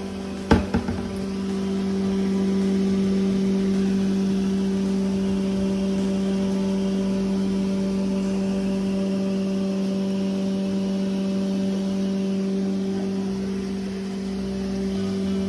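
A steady low machine hum, with a short clatter of a few quick knocks about half a second in.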